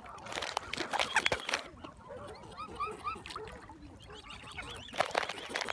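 A crowd of birds gathered to be fed, giving many short, overlapping calls, with sharp clicks and rustles among them.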